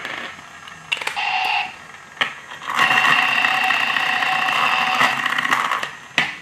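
Toy repair tool of a Thomas & Friends TrackMaster Steamworks Repair Station set playing its electronic sound effect as it is pressed onto the toy engine's funnel: a short burst about a second in, then a longer steady one from about three seconds until just before the end. Sharp plastic clicks come between the bursts.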